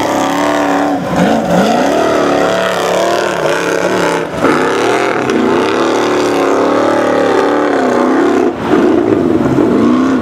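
Formula Offroad hillclimb buggy's engine revving hard under full load up a steep sand hill, its pitch swinging up and down with the throttle and wheelspin. It is briefly cut about one, four and eight and a half seconds in.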